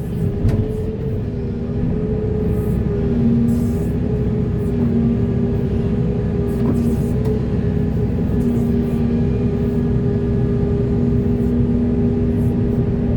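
Large hydraulic excavator's diesel engine running steadily: a continuous low rumble with a steady hum whose pitch wavers slightly.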